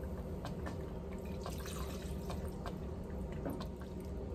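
Wine poured from a plastic measuring cup into a pot of thick gumbo and stirred in with a wooden spoon: liquid splashing and small wet clicks over a steady low hum.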